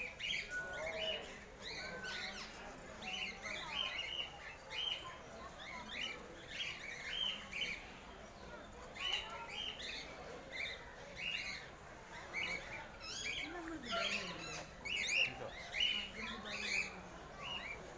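Many caged birds, parakeets and parrots among them, chirping and squawking together in a dense stream of short, high calls.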